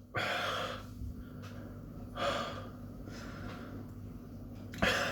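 A man breathing hard through his mouth from the burn of a superhot chili pepper: three heavy, noisy breaths about two and a half seconds apart, the last one short and sharp.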